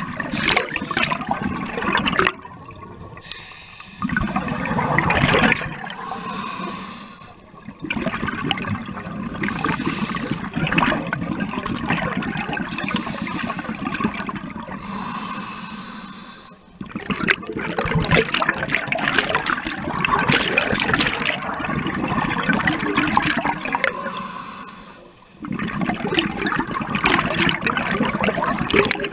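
Scuba diver breathing through a regulator underwater: loud bubbling exhaust bubbles on each exhale alternate with the quieter hiss of the regulator on each inhale, about five breaths.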